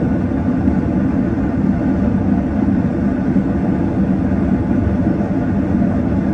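Gas forge burner running, a steady, even rush of flame and air, with a small fan feeding extra air into the burner.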